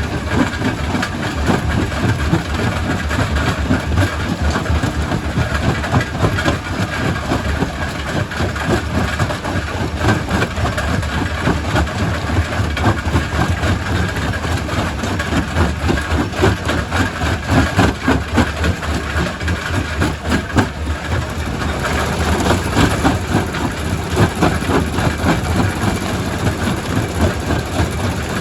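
Quarry primary rock crusher running under load, rock clattering and cracking continuously over a steady low machine drone.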